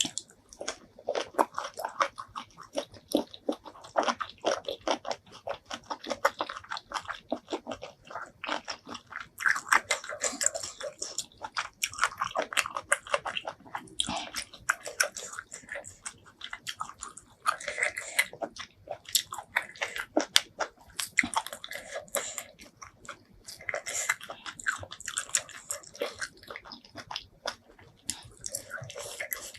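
Close-miked chewing and biting of seafood: rapid wet, crunchy mouth sounds one after another, with a few brief lulls.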